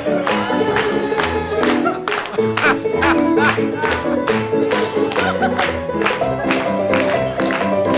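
A band playing live: a steady drum beat under keyboard and other instruments, with voices singing.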